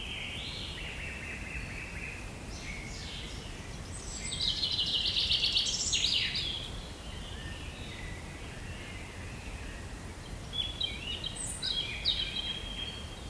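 Wild birds singing: several calls and a rapid trill, loudest about four to six seconds in, over a steady low background noise.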